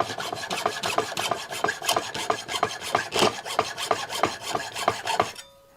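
Hand saw with a greased blade cutting through the sprue of a small cast part held in a vise, in rapid, short, rasping strokes that stop about five seconds in.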